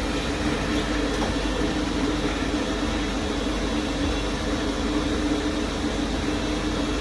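Xiaomi robot vacuum-mop running, a steady whir of its suction motor with a constant hum.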